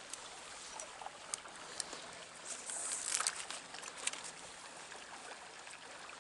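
Trout stream water running steadily, with scattered small clicks and a brief louder hissing rush about three seconds in.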